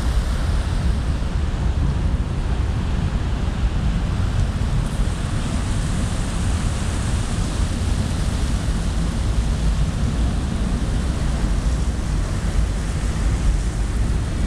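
Wind buffeting the microphone on a ferry's deck: a steady low rumble and hiss that does not change.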